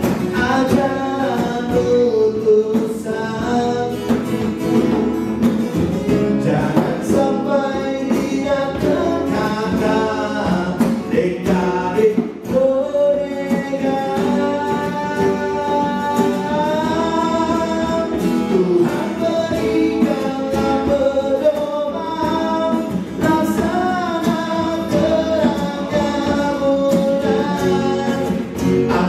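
Live acoustic song: a man sings into a microphone over a strummed acoustic guitar, with hand strokes on a djembe drum keeping a steady beat, amplified through a small PA.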